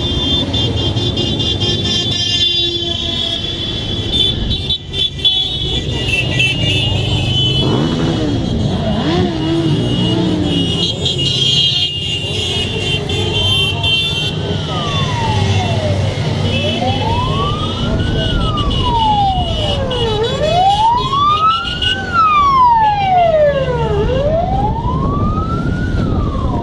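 A stream of motorcycles riding past at low speed, engines rumbling steadily. From about halfway, a siren joins in, wailing up and down in slow sweeps about every four seconds.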